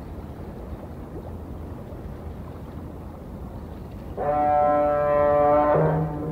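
Quiet harbour background with a low steady rumble; about four seconds in, a ship's siren sounds a loud blast for about a second and a half, then a lower horn note carries on.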